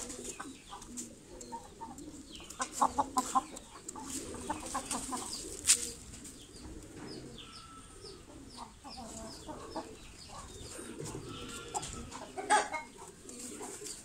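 Aseel game fowl clucking in short rapid runs while pecking at feed in a plastic bowl, with sharp taps from beaks striking the bowl.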